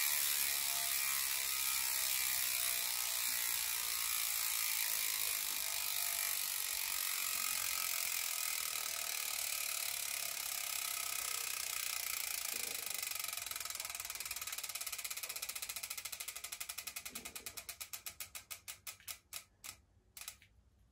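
Rear-wheel freehub pawls ratcheting as the bike's rear wheel freewheels. A fast, continuous run of clicks slows into separate clicks spaced further and further apart, then stops just before the end as the wheel comes to rest.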